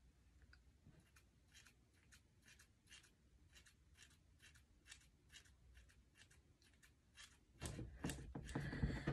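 Faint, quick snips of ordinary household scissors cutting through hair to trim bangs, about three snips a second. Near the end comes a louder stretch of rustling noise.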